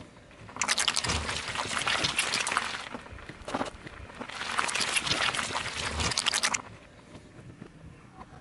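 Car tyre rolling over and crushing a block of red jelly: a wet, crackling crunch of the block breaking apart under the weight. It comes twice, each spell about two and a half seconds long, with a single sharp click between them.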